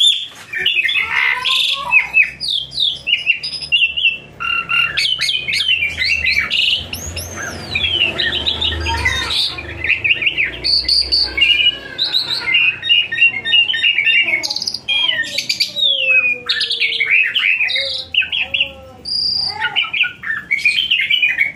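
A bird singing a long, varied song of quick chirps, trills and whistles, with short pauses between phrases.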